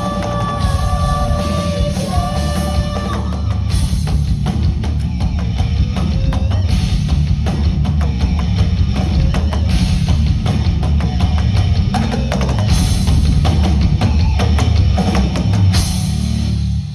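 Rock band playing loud and full, with a pounding drum kit and cymbal crashes under sustained held notes at first. The music stops abruptly at the end.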